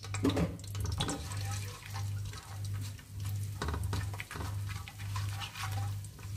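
Whole spices (cumin seeds, bay leaf and cinnamon) sizzling and crackling in hot oil, with a spatula scraping and stirring across the metal pan bottom: a spice tempering (tadka) being fried. Underneath runs a low hum that pulses about one and a half times a second.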